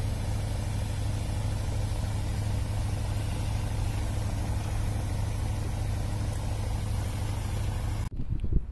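Small boat's engine running steadily at idle, a low even hum with hiss over it. It cuts off abruptly near the end, followed by a short thump.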